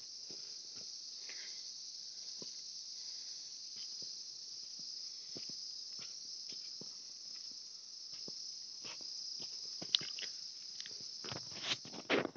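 Steady high-pitched chorus of insects, with scattered soft clicks and a few louder knocks and rustles near the end.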